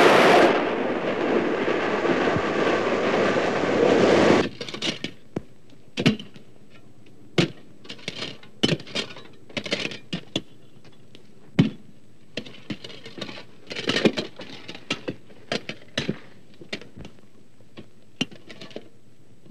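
A steam train running, a dense loud rumble that cuts off about four and a half seconds in. Then come scattered sharp clinks and knocks of platelayers' hand tools working on the rails and ballast.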